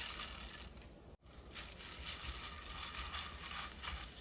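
Roasted white chana dal sizzling and bubbling as it fries in hot oil, lowered in on a wire frying spider. The sizzle is louder for about the first second, then carries on as a quieter steady sizzle with small crackles.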